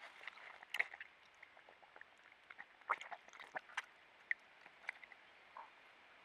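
A badger moving about and foraging, making a string of faint, irregular short clicks, sniffs and rustles over a low background hiss.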